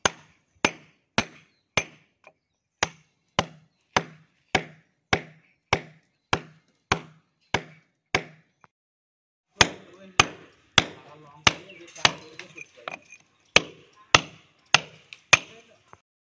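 Club hammer driving a steel chisel into a cement-plastered wall: sharp metallic blows at a steady pace, a little under two a second. The blows pause briefly about eight seconds in, then carry on.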